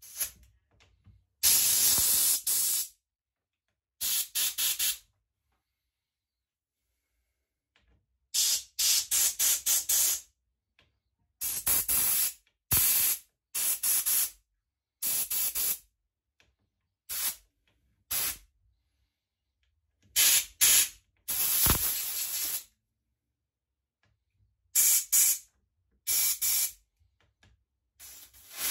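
About a dozen short bursts of spray hissing, some a second or two long, with silent gaps between, as the cut-off saw's carburettor is blasted through to clear passages clogged with sludge.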